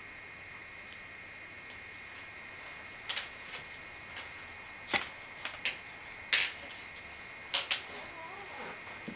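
Scattered sharp clicks and taps, about ten of them at uneven intervals and bunched in the second half, over a steady high-pitched hum.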